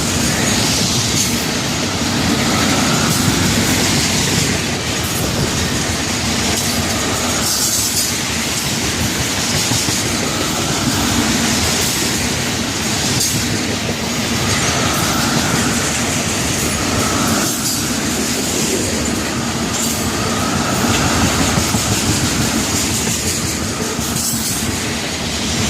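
Freight cars of a mixed manifest, intermodal and tank-car train rolling past close by: a steady rumble of wheels on rail, with a rhythmic clickety-clack as the wheel trucks pass and short recurring wheel squeals.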